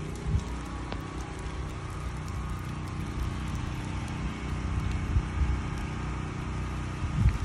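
Hurricane-force wind gusting and buffeting the phone's microphone in a continuous rumble, with harder gusts about half a second in, around five seconds and near the end, over a steady low hum.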